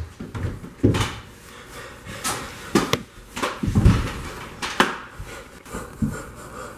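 Irregular thumps, knocks and scuffs of a person landing and tumbling on a hard kitchen floor while wielding a broom, about seven in all; the heaviest is a dull low thump near the middle.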